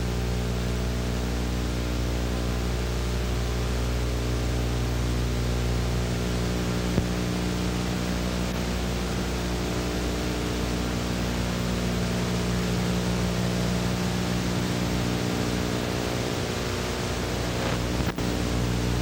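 Steady hiss with a buzzing mains hum from an analogue videotape soundtrack, with a short glitch about a second before the end.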